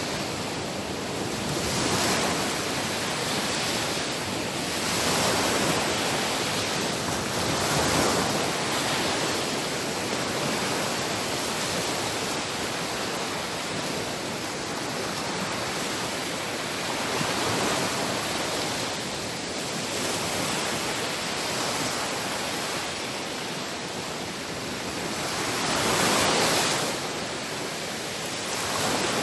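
Sea waves breaking and washing ashore: a continuous rush of surf that swells with each wave every few seconds, the biggest surge a few seconds before the end.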